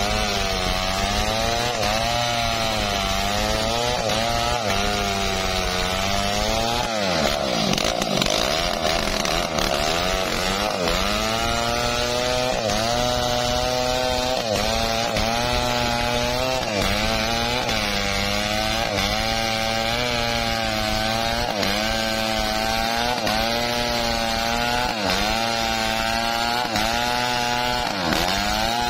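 Stihl two-stroke chainsaw running at full throttle while cutting through a teak log. Its pitch dips and recovers about once a second as the chain bites into the wood. A few seconds in, the engine bogs down deeply and takes a couple of seconds to climb back to speed.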